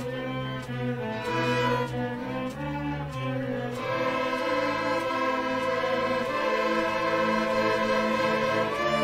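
String orchestra of violins, cellos and double basses playing sustained chords together. About four seconds in, the upper strings swell fuller while the low bass line drops back.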